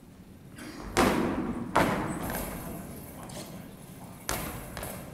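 Heavy thuds of a goalball throw and block on a sports-hall floor: two loud impacts about a second in, just under a second apart, and a third softer one near the end. Each rings on in the hall.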